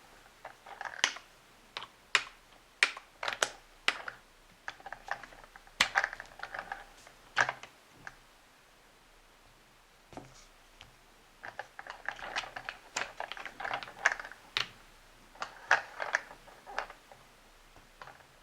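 Hands handling the plastic parts of a Play-Doh Buster the Power Crane playset: irregular clicks and taps of plastic on plastic, pausing for about three seconds midway.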